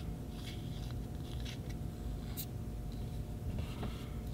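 Faint handling noise of a Sheaffer Touchdown fountain pen as its plunger is worked out of the barrel: soft rubbing and scraping with one sharp click about two and a half seconds in, over a steady low hum.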